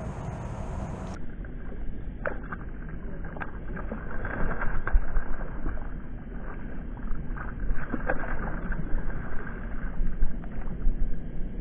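Gusty wind on the microphone and water moving around a small fishing boat, heard muffled, with a few light knocks about two, three and a half and eight seconds in.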